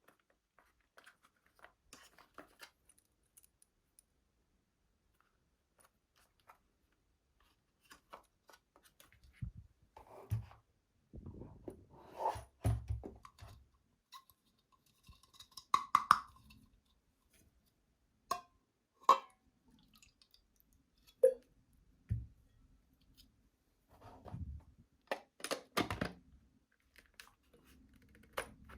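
Handling noises: scattered clicks, taps and knocks, with a few louder ones at irregular moments and short ringing clicks in the middle.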